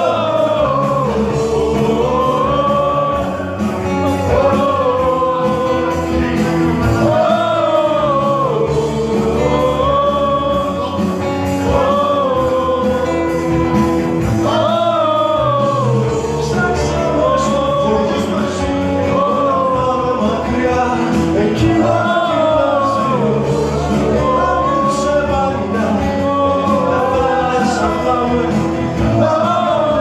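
Live acoustic song: acoustic guitar with male singing in repeated, rising and falling phrases that carry no clear words.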